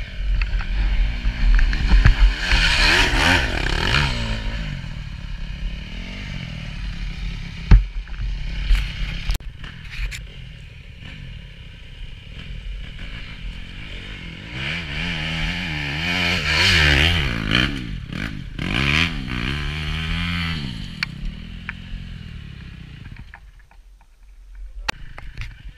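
250 cc enduro motorcycle engines revving hard in surges under load on a steep dirt climb, with scattered knocks and clatter, the loudest knock about eight seconds in. The engine noise drops away near the end.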